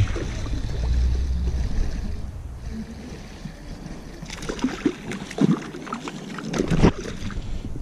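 Stream water running, with wind rumbling on the microphone, while a hooked trout is reeled in on a spinning reel. From about four seconds in comes a run of short, irregular splashing and clicking sounds.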